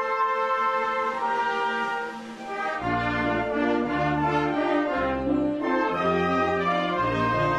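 Mexican brass band (banda filarmónica) music: a slow tune in held brass chords, with low brass bass notes coming in about three seconds in.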